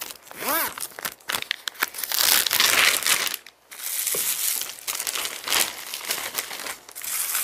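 Plastic crinkling and rustling: a large zip-top plastic freezer bag and potatoes wrapped in Press'n Seal plastic wrap, handled and slid into the bag. A brief pitched vocal sound comes about half a second in.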